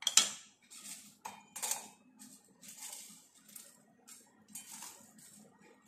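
Roasted dried red chillies and whole spices being scraped with a wooden spatula from a steel pan into a stainless-steel mixer-grinder jar: a run of uneven scrapes, clinks and rattles, loudest right at the start.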